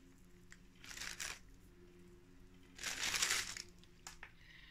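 A paper bag of flower bulbs crinkling twice as it is handled, each rustle lasting about half a second.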